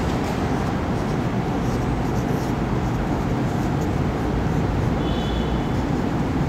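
A marker writes on a whiteboard over a steady low background rumble and hiss. The marker gives a short high squeak about five seconds in.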